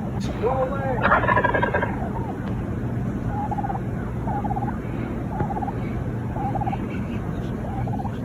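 A turkey gobbling: one loud rattling gobble about a second in, then five short calls spaced about a second apart, over a steady low hum.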